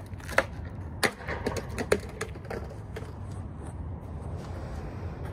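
Skateboard deck slammed against concrete in anger: a run of sharp wooden cracks and knocks in the first two seconds as the deck is smashed, over a steady low rumble.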